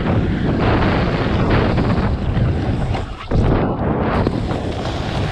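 Wind buffeting an action camera's microphone: a loud, rough, steady rush with a short dip about three seconds in.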